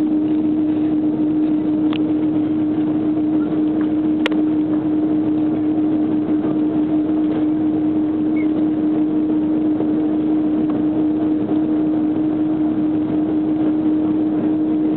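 Jet engines of a taxiing Airbus A330 running at idle: a steady, unchanging drone with a constant low hum through it. Two brief clicks come in about two and four seconds in.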